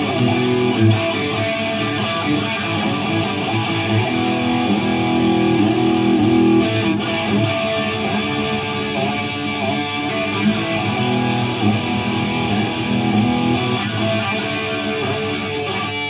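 ESP LTD ST-203FR electric guitar played through a Marshall DSL100H valve amp head on its distortion channel, with steady, loud, sustained distorted notes.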